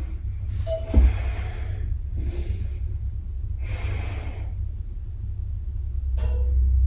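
A person breathing audibly, slow breaths in and out while holding a stretch, three or four breaths in all. A single short knock about a second in, over a steady low hum.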